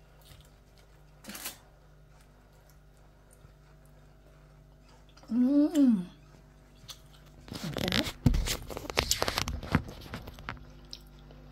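A woman hums a rising-and-falling "mmm" of enjoyment as she tastes grilled mackerel, then aluminium foil crinkles with a run of sharp clicks and scrapes for about three seconds.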